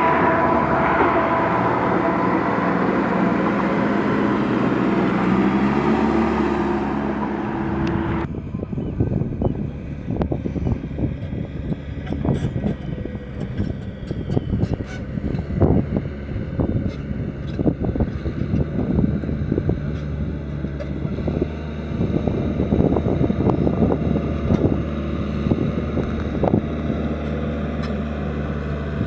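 A heavy earthmoving machine's diesel engine runs under load, its pitch rising about six seconds in. After an abrupt change near eight seconds, a lower steady engine note is joined by many sharp knocks and clanks of the machine at work.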